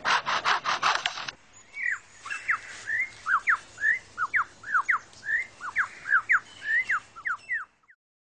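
Superb lyrebird's mimicked song. It opens with about a second of rapid, rasping pulses, the tail of its chainsaw imitation, then breaks into a run of short whistled notes sweeping up and down, about three a second, which stop abruptly near the end.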